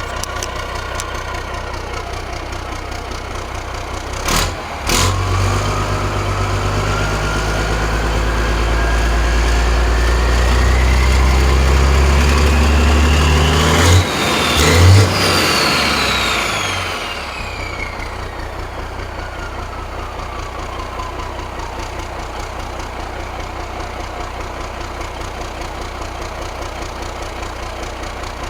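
Diesel engine of a 1983 Kenworth K100 cabover running while it warms up. About four seconds in there is a knock, then the engine speeds up slowly over about ten seconds with a rising whine. Near the middle there are two sharp pops, then it drops back over a few seconds to a steady idle.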